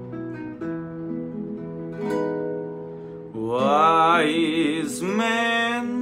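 Acoustic guitar picking single notes, then about three and a half seconds in a male voice comes in singing long, wavering notes over it.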